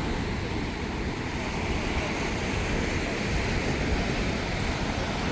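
Steady noise of wind and sea surf, with a low rumble of wind buffeting the microphone.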